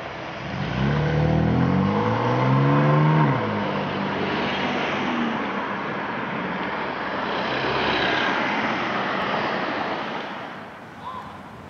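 Cars pulling away across a railroad grade crossing. One engine rises in pitch as it accelerates over the first few seconds and then cuts off, followed by steady tyre and engine noise from more passing cars that fades near the end.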